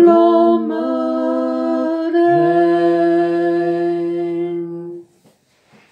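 Unaccompanied voices singing in harmony and holding a closing chord. A lower voice moves down to a low note about two seconds in, and the chord cuts off about five seconds in.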